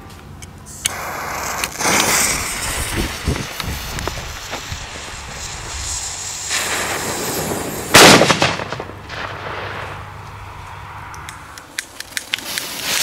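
Jorge FP3 12 mm flash banger: its green-light effect burns with a hiss for a couple of seconds, then the report goes off in one loud, sharp bang about eight seconds in, ringing on briefly afterwards.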